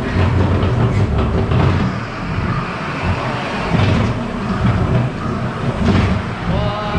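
Ghost train ride car rolling along its track, a loud, uneven low rumble. Near the end a short, rising pitched sound from one of the ride's scare effects joins it.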